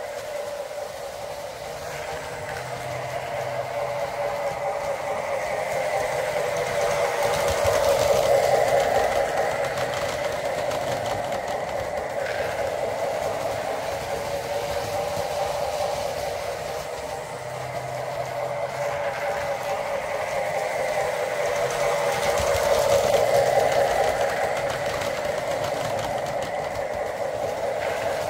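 Small electric motors of Carrera Go 1:43 slot cars whining with the running of a Lionel O gauge train on three-rail tube track. The sound is steady, swelling louder twice as the cars come near.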